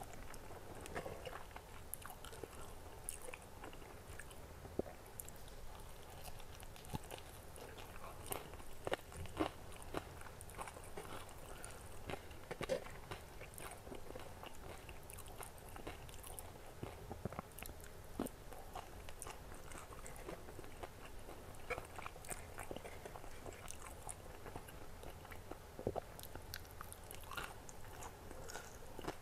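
Close-miked chewing and biting of crispy fried chicken and noodles, with many small sharp crunches and wet mouth clicks.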